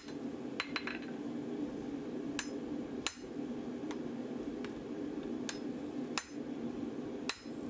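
Hand hammer striking red-hot steel on an anvil while forging a hot-cut hardie: single blows about a second apart, some closer together, each with a short metallic ring.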